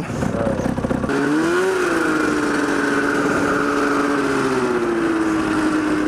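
Two-stroke snowmobile engine in a go-kart running; about a second in its pitch rises, then holds fairly steady and eases down a little near the end. The owners suspect the engine is running slightly rich.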